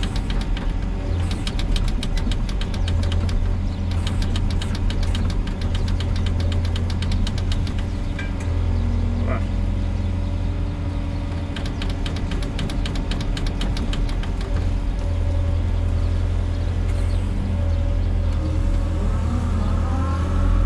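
Volvo EWR150E wheeled excavator's diesel engine running steadily with a deep hum, overlaid by a fast ticking rattle that comes and goes. Near the end a wavering whine rises over the engine.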